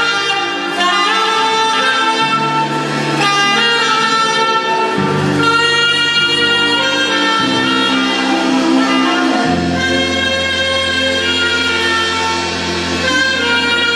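Saxophone-led instrumental worship music: the saxophone holds long melody notes over a backing band whose bass notes change every couple of seconds.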